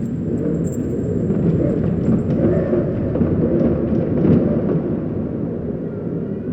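A deep, dense rumble from a horror sound effect, swelling to its loudest about four seconds in and then slowly easing.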